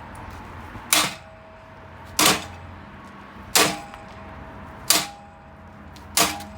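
Five heavy hammer strikes on the metal frame of a scrapped ATV, about one every 1.3 seconds, each leaving a brief metallic ring.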